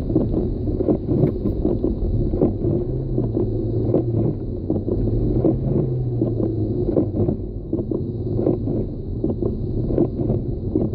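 Car driving on a snow-covered highway, heard inside the cabin: a steady low rumble of road and tyre noise with frequent small knocks and bumps. A low engine hum rises and dips between about two and seven seconds in.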